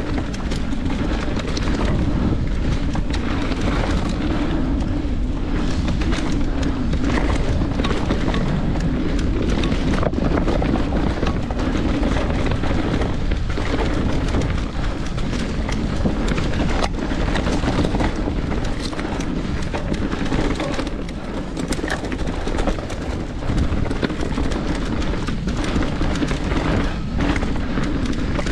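Mountain bike, a Santa Cruz Nomad, descending a rocky dirt trail, heard through an action camera's microphone: wind buffeting the mic over the tyres running on dirt and rock and the bike rattling, with sharp knocks from rocks and roots now and then.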